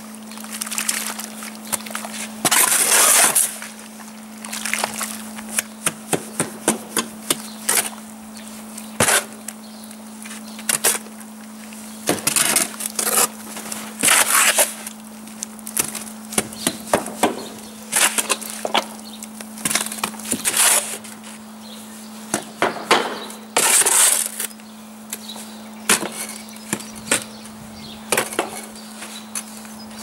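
A steel spade scraping and chopping through wet sand-and-cement mortar in a metal wheelbarrow, mixing it by hand. The strokes come irregularly, as longer gritty scrapes mixed with sharp clinks where the blade strikes the barrow.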